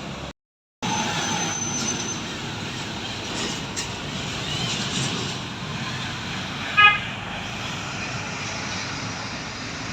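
Steady street traffic noise from passing vehicles, with a short car horn toot about seven seconds in, the loudest sound. The sound drops out completely for about half a second just after the start.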